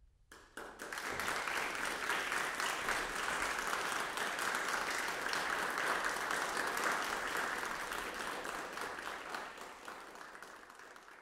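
Audience applauding at the close of a performance: clapping breaks out about half a second in, quickly builds to a steady level, and thins out and fades near the end.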